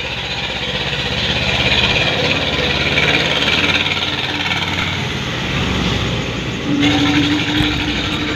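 A steady engine-like mechanical drone with a low hum underneath, changing in character nearly seven seconds in, when a steady tone comes in.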